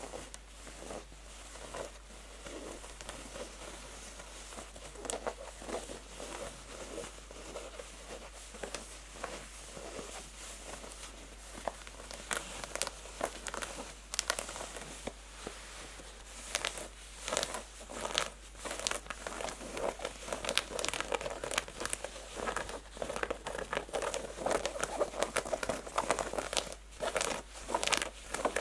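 Fingernails scratching fast and hard on textured denim jeans fabric: a dense run of short, scratchy strokes that grows louder and sharper about halfway through.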